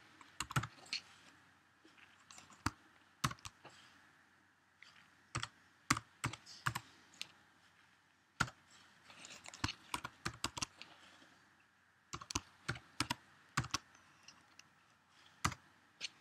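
Computer keyboard being typed on, keystroke clicks in short irregular bursts with brief pauses between them.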